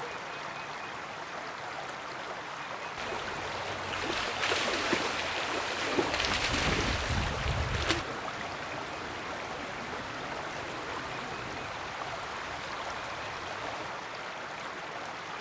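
Creek water running steadily, louder for about five seconds in the middle, with abrupt changes in level at the start and end of that stretch.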